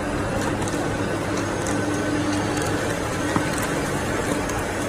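Packing machinery running with a steady mechanical hum, a held low tone and scattered light ticks.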